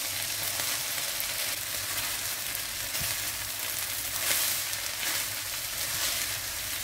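Food sizzling in a frying pan while a spatula stirs crisp straw potatoes into sautéed fish, onion and garlic, the strokes adding a scraping rustle over a steady hiss.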